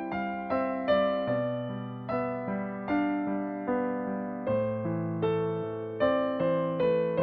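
Background music: a slow, gentle solo piano or electric piano piece, notes struck about twice a second and left to ring over sustained chords.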